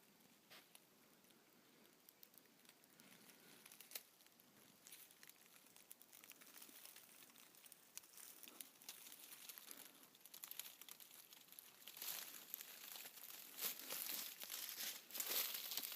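Footsteps crunching and crackling through dry forest-floor litter. It starts faint with scattered clicks and grows denser and louder toward the end.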